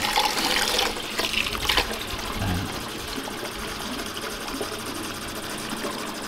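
Tap water running into an aluminium pot of raw rice during rinsing. For the first couple of seconds a hand swishes the grains in the water, then a steady stream pours into the filling pot.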